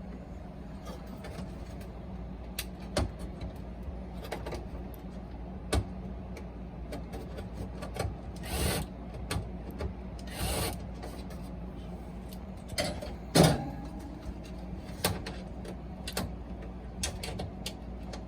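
Scattered clicks and knocks of parts being handled, with two short scraping sounds about eight and ten seconds in and a loud knock about thirteen seconds in, over a steady low hum.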